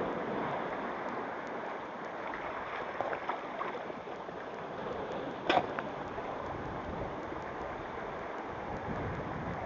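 Steady wash of sea surf with wind buffeting the microphone, and one short knock about five and a half seconds in.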